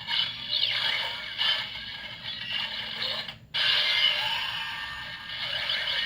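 Electronic transformation sound effect from a DX Ultraman Omega Byakko (Trigaron) kaiju toy, played through its small built-in speaker after a long press of its button. It is a thin, tinny sequence of swooping tones that breaks off suddenly about three and a half seconds in and then starts again.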